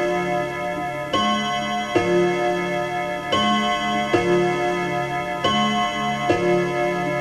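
Striking clock chiming twelve on its chime rods: ringing strokes in pairs, three pairs here, each stroke left ringing into the next.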